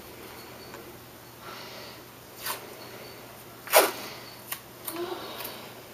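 Blue painter's tape being pulled off the roll and handled: a few short rips and rustles, the loudest a little under four seconds in.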